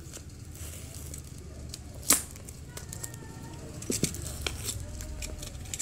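A snap-off utility knife cutting and scraping at the packing tape and paper of a parcel, with rustling and tearing of the wrapping and a sharp click about two seconds in.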